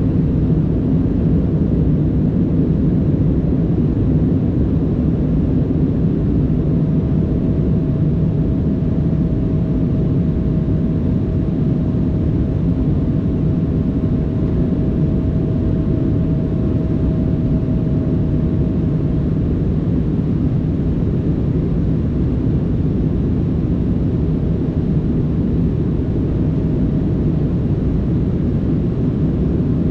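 Steady airliner cabin noise: the deep, even rush of the jet engines and airflow. A faint steady whine drops out a little past the middle and comes back near the end.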